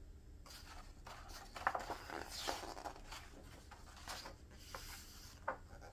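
A page of a hardbound book being turned and pressed flat by a gloved hand: soft paper rustling and sliding, with a few light taps near the end.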